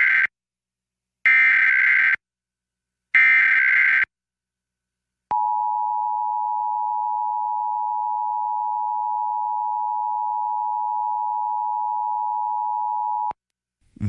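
Emergency Alert System broadcast alert. First come the last of the three SAME header data bursts, harsh digital screeches about a second long each; about five seconds in, the two-tone EAS attention signal (853 and 960 Hz together) starts and holds steady for about eight seconds, then cuts off.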